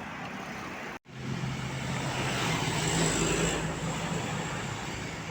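A bus running past: a steady low engine hum with tyre and road noise that swells to its loudest midway and then eases off. The sound cuts out completely for a moment about a second in.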